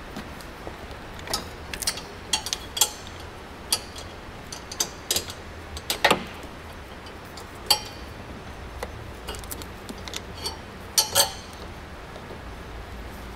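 Snowblower chute hoses and their metal fittings being unclipped and pulled from their holders: a dozen or so irregular sharp metallic clicks and clinks, loudest about halfway through and near the end, over a low steady hum.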